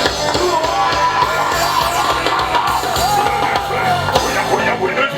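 Band music with drums, bass and guitar, and a voice singing over it.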